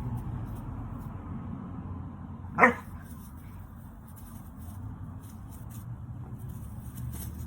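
A dog barks once, sharply, about two and a half seconds in, over a steady low rumble.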